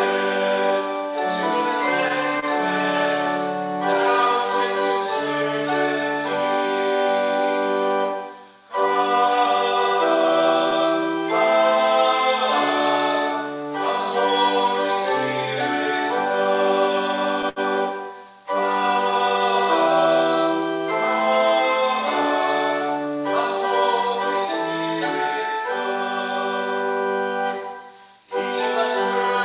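A hymn sung by voices with organ accompaniment, moving in held chords. It comes in phrases about ten seconds long, with a brief break between each.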